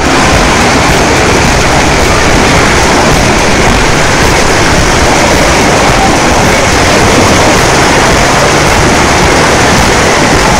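Muddy floodwater rushing in a fast, turbulent torrent: a loud, steady rush of water.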